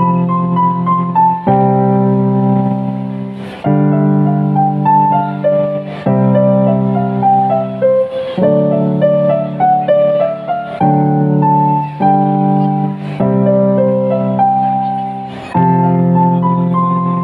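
Electronic keyboard played with a piano sound: a stepping right-hand melody over held chords that change every second or two.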